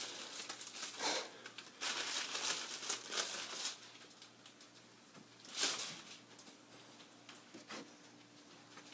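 Wrapping being crinkled and torn off an object: a run of rustling bursts for the first few seconds, then one louder burst past the middle.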